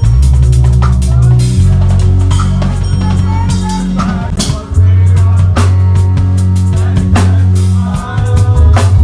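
Loud music with a heavy, sustained bass line and a drum beat, played through a sound system at a sound check. The bass drops out briefly about halfway through, then comes back in.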